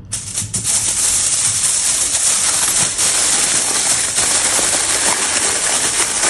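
Aluminium foil crinkling and crackling steadily as potatoes are wrapped in it, starting abruptly right at the outset.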